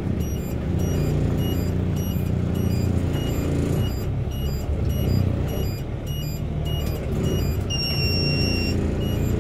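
Log truck's diesel engine running with a steady low rumble, heard from inside the cab. A short electronic beep repeats at a regular pace over it, and one longer beep sounds for about a second near the end.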